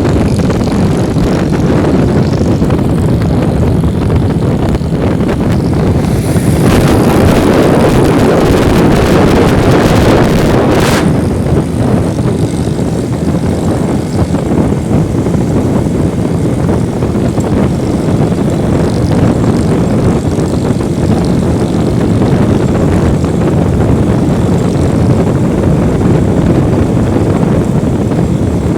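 Motorcycle riding at speed: a steady rush of wind buffeting the mic over the running engine. About seven seconds in, a louder hiss swells and cuts off sharply near eleven seconds.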